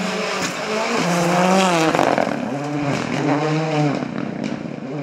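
Ford Fiesta rally car accelerating hard past on a gravel stage: the engine revs climb, drop at a gear change about two seconds in, and climb again before the car has passed, over the hiss of tyres on loose gravel.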